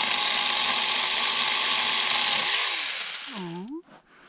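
Saker 20-volt battery mini chainsaw running at full speed, its chain cutting through a green juniper branch, then winding down about three seconds in.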